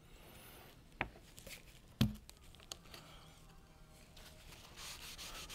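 Quiet workbench handling: a light click about a second in, then a knock about two seconds in as the plastic glue bottle is set down on the wooden bench, followed by faint rubbing near the end.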